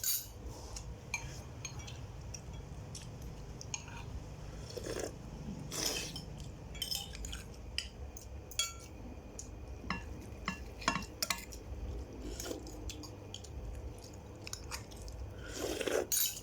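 Cutlery and dishes clinking in scattered, irregular knocks during a meal, with some chewing, over a low steady background hum.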